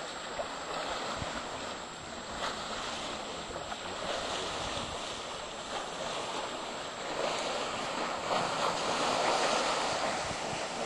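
Steady rushing roar of Victoria Falls' falling water, swelling somewhat in the second half.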